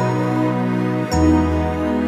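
Background music: slow, soft chords with a melody line above them, changing chord about a second in.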